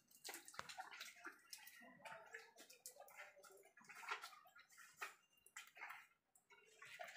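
Faint, irregular splashing and trickling of water poured from a mug and splashed by hand over a calf's wet coat.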